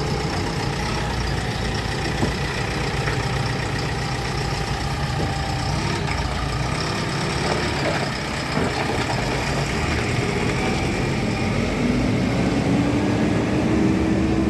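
Heavy diesel engine running steadily, revving up slowly near the end.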